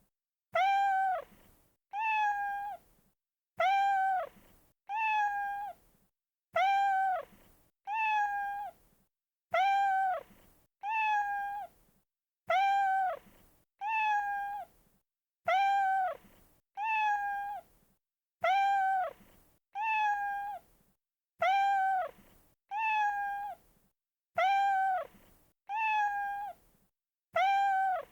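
A single cat meow, one short call, looped and repeated identically about once a second with dead silence between each.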